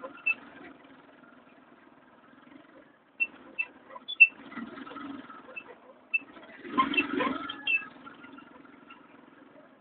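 A vehicle engine running steadily, with scattered clicks and knocks over it. It cuts out briefly about three seconds in and is louder for a moment around seven seconds in.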